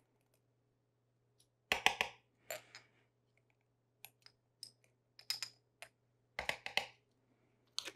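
Scattered light clicks and taps of a measuring spoon and spice jar while a teaspoon of ground cumin is measured out, a few louder clusters among them.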